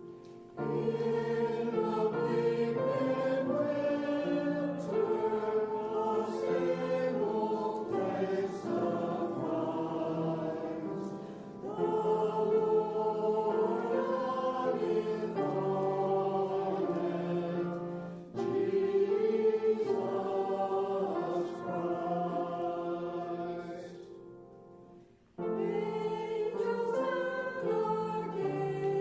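Choir singing slow, sustained phrases with short breaks between them. Near the end it fades almost to silence, then comes back in.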